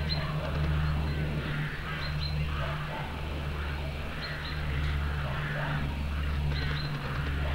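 Birds calling: short high chirps in quick pairs about every two seconds, with softer lower calls between them. Under them runs a steady low hum.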